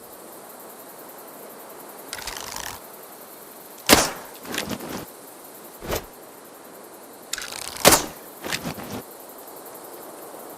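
Bow and arrow shot twice, about four seconds apart: each time a short scraping draw, then a loud sharp release, followed by a couple of softer knocks.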